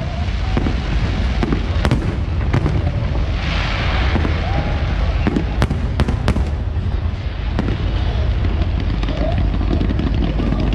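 A fireworks display: aerial shells bursting in a string of sharp bangs over a continuous low rumble, with a brief hissing burst about three and a half seconds in.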